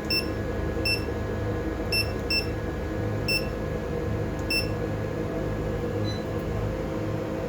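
Short, identical high-pitched key beeps from a marine AIS unit's keypad as its buttons are pressed during programming, six at irregular intervals, over a steady low machinery hum.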